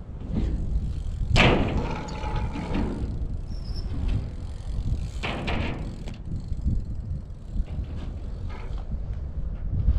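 Strong wind buffeting the microphone as a steady low rumble, with two sharp knocks about a second and a half in and just after five seconds, from a BMX bike riding and landing on the skate park's ramps.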